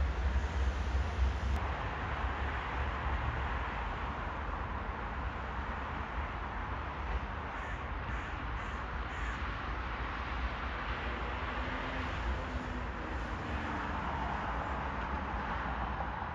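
Steady outdoor background of distant city traffic, with crows cawing.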